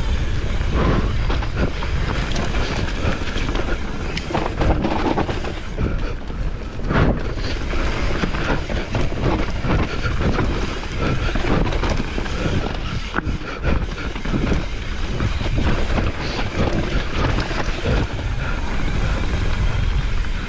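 Mountain bike being ridden fast downhill: wind rushing over the microphone, tyres rolling over the trail and the bike rattling, with many short sharp knocks from bumps.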